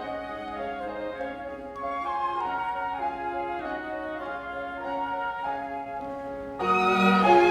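Orchestra playing a Christmas arrangement, with flute prominent over sustained notes. About six and a half seconds in, the full orchestra comes in louder.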